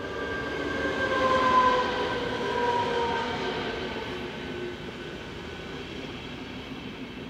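ČD class 471 CityElefant double-deck electric multiple unit passing close by. Its whine falls in pitch as it goes past, loudest about a second and a half in, and then the rolling noise of the cars fades as it moves away.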